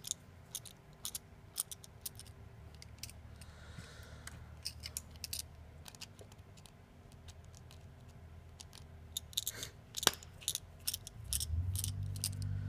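Small metal clicks and ticks, irregular and scattered, from a precision screwdriver turning out the tiny screws on an iPhone 6's home button bracket and tapping the phone's metal frame.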